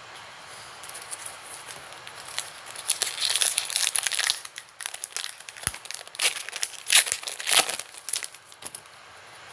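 Plastic wrapper of a Topps Heritage baseball card pack being torn open and crinkled, a run of irregular crackling rustles, loudest about three to four seconds in and again around seven seconds.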